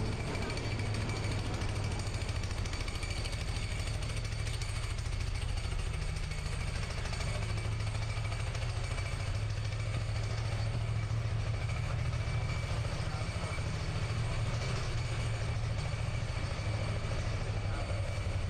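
Steady low rumble of city street traffic, a little stronger as a tram runs past close by about ten to twelve seconds in.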